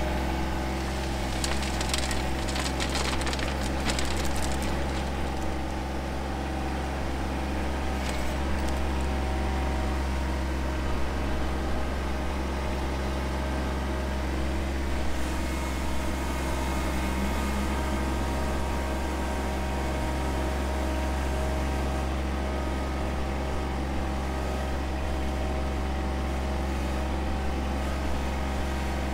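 John Deere 2025R compact tractor's three-cylinder diesel engine running steadily. For the first few seconds, loose rock crunches and clatters at the front loader bucket.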